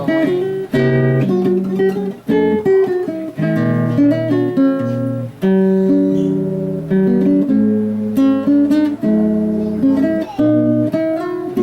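Acoustic guitar strummed in chords, each chord struck sharply and changing about every half second to a second.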